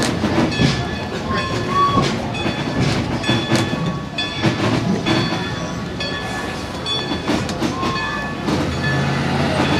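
Vintage railroad passenger coach rolling along on its trucks: wheels clacking over rail joints and the car rattling in irregular knocks, with short thin squeaks now and then. A low steady hum comes in near the end.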